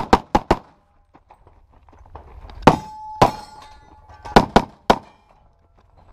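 Handgun shots fired in a practical pistol stage: four quick shots at the start, two more near the middle, then three shortly after, with a steel target ringing after the middle pair.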